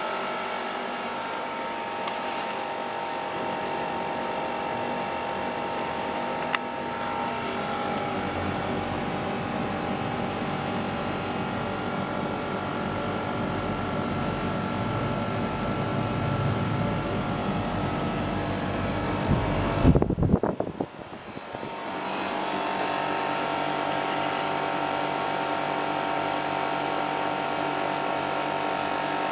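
Samsung 1.0 hp mini-split air conditioner running steadily, a whirring fan with several constant tones over an airy hiss; the owner says its airflow is restricted by very dirty evaporator coils. About two-thirds through, a brief loud low rumble with a few thumps, then the sound dips for a moment before the steady running returns.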